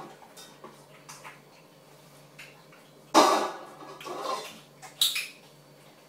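Metal dog food bowl handled on a hard kitchen floor: faint clicks, then a few sharp clanks in the second half, the last with a brief metallic ring.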